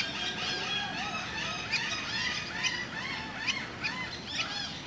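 Birds calling: many short, arching chirps and whistles overlapping one another, several a second.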